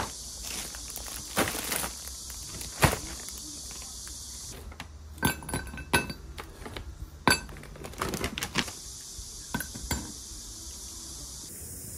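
Frozen peeled shrimp dropped by hand into a Pyrex glass measuring cup: a string of irregular sharp clinks and taps against the glass, over a faint steady hiss.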